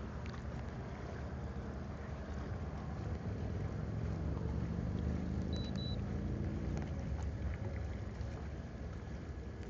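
Low hum of a boat motor over wind and water noise, swelling for a few seconds in the middle, with two short high beeps a little over five seconds in.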